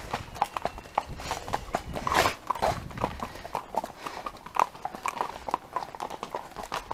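Horses' hooves clip-clopping, an uneven run of hoofbeats from a group of horses being ridden.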